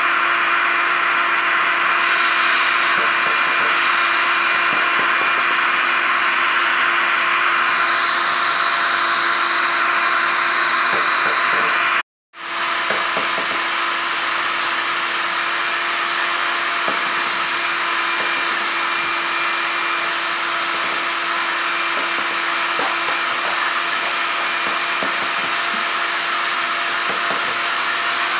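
Hair dryer blowing steadily on a constant setting, a whooshing rush of air over a steady motor hum. It cuts out abruptly for an instant about twelve seconds in, then carries on.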